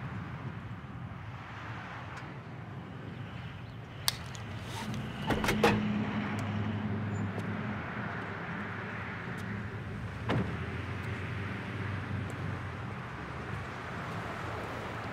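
Car door of a Pontiac Aztek: latch clicks about five seconds in as it opens, then a single knock about ten seconds in as it shuts. A steady low rumble of traffic and engine runs under it.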